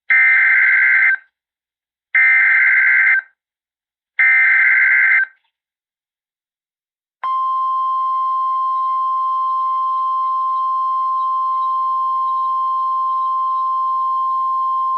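NOAA Weather Radio emergency alert: the SAME data header sent three times as harsh, buzzing one-second bursts about two seconds apart. About seven seconds in, the steady 1050 Hz warning alarm tone begins. It announces a tornado warning.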